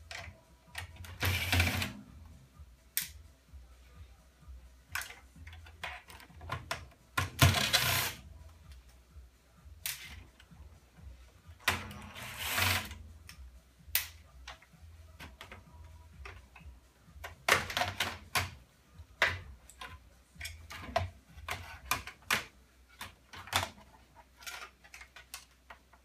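Irregular clicks, knocks and clatter of plastic and metal parts being handled and pried loose while an old desktop computer tower is taken apart by hand, with a few longer scraping noises lasting about a second each.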